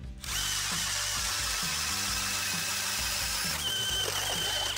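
Power ice auger drilling through lake ice: a loud, steady whine that starts suddenly and cuts off near the end, shifting pitch about three and a half seconds in.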